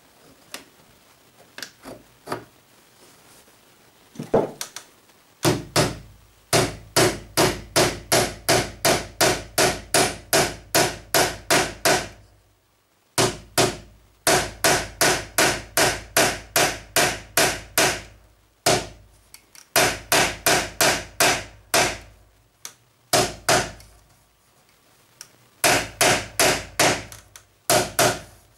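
Small hammer tapping a metal lock plate into a wooden window-vent frame, driving its spikes into the wood. A few light taps, then runs of quick, sharp taps, about two to three a second, with short pauses between runs.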